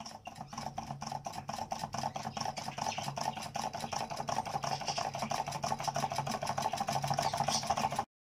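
Model electromagnetic reciprocating motor, built after Magrini's design, running: its two induction coils drive a flywheel through connecting rods with a rapid, even mechanical clicking of about six to eight clicks a second. The clicking grows steadily louder and cuts off suddenly near the end.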